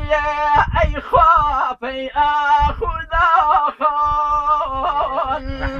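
A man singing a Kurdish song in long, ornamented held notes, with a low steady tone held beneath the voice.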